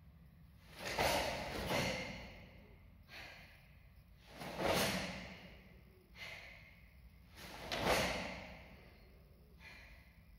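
A karateka's forceful breaths during a kata: several loud exhalations, each fading over about a second, the strongest about a second, four and a half and eight seconds in.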